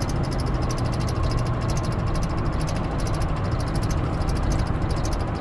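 Vehicle engine running, heard from inside the cab: a steady low hum and rumble with a rapid, faint high ticking over it.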